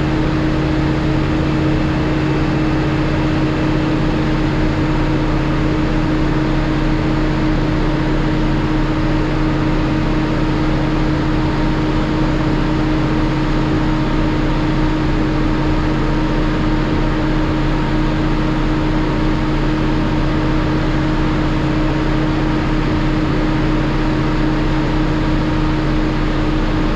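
Freshly rebuilt Cummins ISL9 six-cylinder diesel running at a steady speed, heard from inside the truck's cab. The pitch and level hold even throughout, with no change in engine speed.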